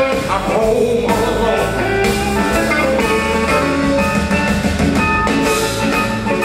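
Live electric blues band playing: a semi-hollow electric guitar carries the lead line over bass guitar and drum kit.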